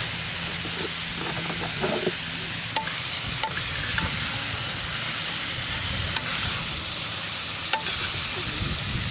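Shanghai noodles, cabbage and chicken sizzling in a hot wok as they are stir-fried with a metal ladle and spatula, with a few sharp clinks of the utensils against the wok.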